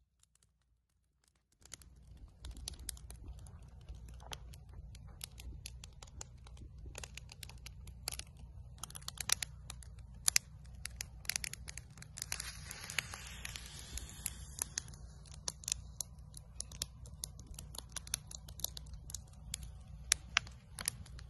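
Wood campfire crackling, with sharp, irregular pops over a low steady rumble. It starts about a second and a half in, and there is a stretch of hissing about halfway through.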